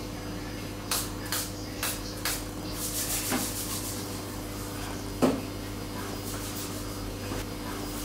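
A few short hissing sprays from a small alcohol spray bottle, about half a second apart, then a quick cluster of sprays or hand rubbing, and a single light knock of an object set down on a desk a little after five seconds, over a steady low room hum.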